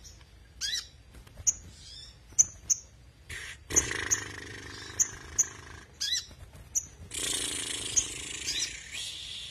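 Caged crimson sunbird (sogon) calling: sharp, high chirps and quick falling notes at irregular intervals. Twice, about a third of the way in and again near the end, a steadier noise with a low hum runs underneath for about two seconds.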